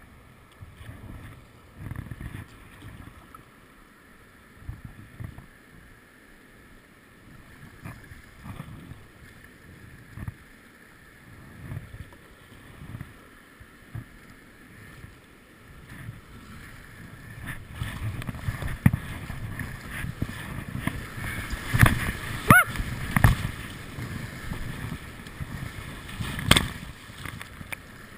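Kayak paddle strokes dipping into river water about once a second, with the water lapping at the hull. About two-thirds through, the rush of a rapid grows louder and waves slap over the kayak's deck and sprayskirt in several loud splashes.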